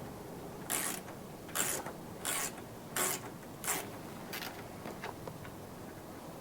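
10 mm wrench working a nut loose with short ratcheting strokes, about six rasping clicks-runs a little under a second apart, stopping after about four and a half seconds.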